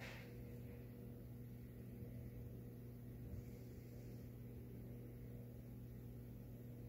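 Steady low electrical hum with a faint hiss beneath it.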